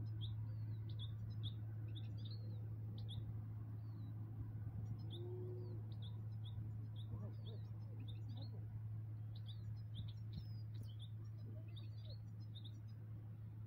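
Goldfinches giving short, high twittering chirps again and again over a steady low hum.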